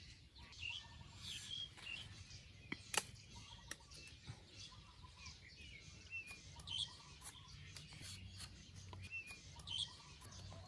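Birds chirping in short scattered calls, with a few sharp clicks, the loudest about three seconds in.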